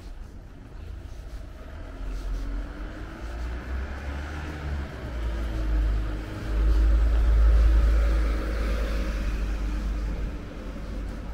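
A car passing on the street, its engine and tyre noise swelling to a peak about seven seconds in and then fading.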